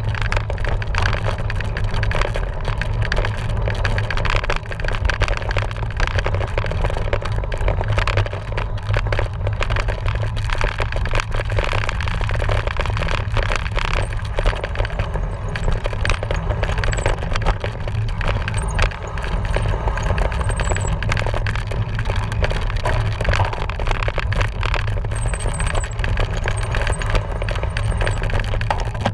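A cyclocross bike ridden over rough ground: a steady deep rumble of wind and tyre noise under a constant rattle and clatter of the bike's parts, with a few faint high squeaks in the middle and near the end.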